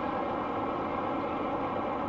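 Steam-hauled passenger train running by: a steady noise of the coaches moving over the track, without distinct exhaust beats.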